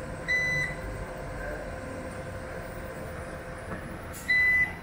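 Prolink online UPS alarm beeping twice, two short high beeps about four seconds apart, over a steady hum. With the battery indicator lit, the beeps are the unit's periodic alarm for running on battery.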